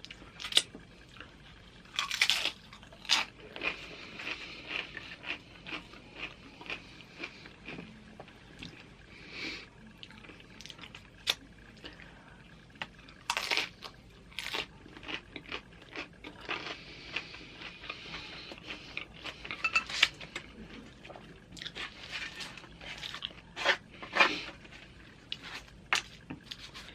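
Close-miked chewing of loaded nachos: irregular crunches of tortilla chips being bitten and chewed, with a few louder crunches among softer ones.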